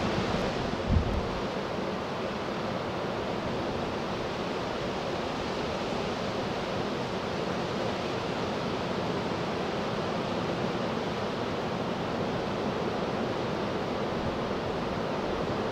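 Steady rushing roar of an Antonov An-124-100M's four Progress D-18T turbofan engines on final approach to landing. A brief low wind bump on the microphone about a second in.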